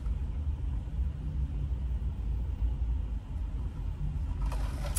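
Steady low rumble of a car idling, heard from inside the closed cabin.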